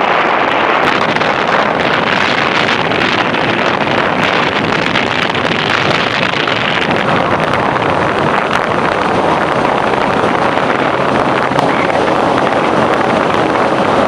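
Steady rush of road and wind noise from a vehicle driving along a highway and into a rock tunnel.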